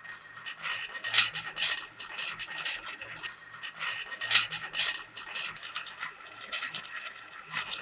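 Small marbles rolling down a wavy-grooved wooden track, clicking irregularly against the wooden groove walls and against each other.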